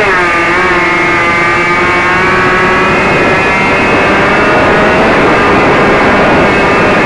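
Radio-controlled model plane's motor and propeller running, pitch dropping sharply as the throttle comes back, then holding a steady whine over a strong rush of wind noise.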